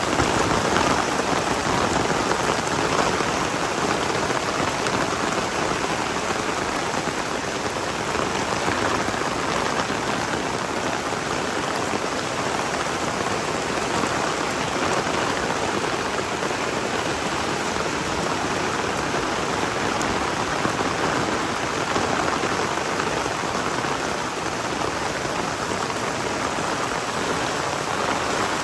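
Heavy rain falling steadily in a torrential downpour, a dense continuous hiss of rain hitting surfaces.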